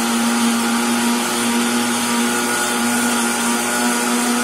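Mondial countertop blender running steadily at one speed, blending a liquid cake-style batter of milk, eggs, butter and oil, with a steady motor hum.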